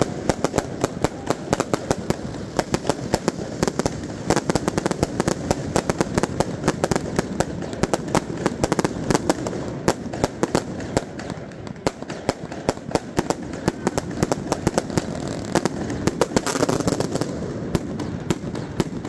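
Fireworks and firecrackers going off in a dense, rapid string of bangs, many each second, over a steady background din.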